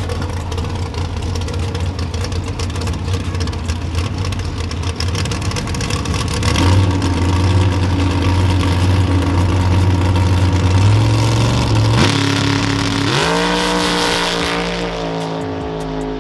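Dragster engine running at a steady low note at the starting line, growing louder about six seconds in. Near the end its pitch jumps and climbs as the car launches and pulls away down the strip.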